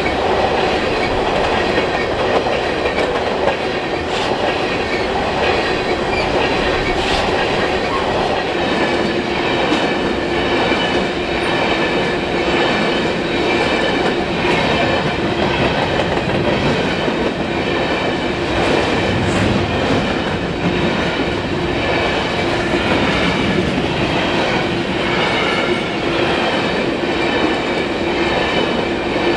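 Freight cars of a BNSF grain train rolling past at speed: a steady, loud rush of wheels on rail, with a steady ringing tone and light clicks as the wheels cross rail joints.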